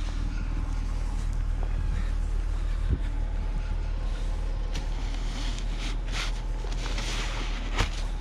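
Steady low rumble with a few scraping, crunching passes of a snow shovel through snow in the second half, and two sharp knocks, about three seconds in and near the end.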